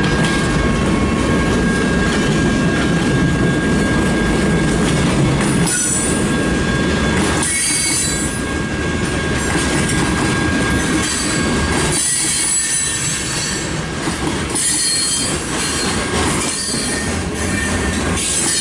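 Freight train rolling past at close range: a steady rumble of cars and wheels on the rails. From about six seconds in, high-pitched wheel squeal comes and goes again and again.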